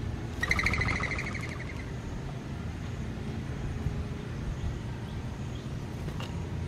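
A mourning dove's wings whistling as it takes off from a feeder: a rapidly pulsed twittering whistle about half a second in that lasts about a second and a half. A steady low rumble runs underneath.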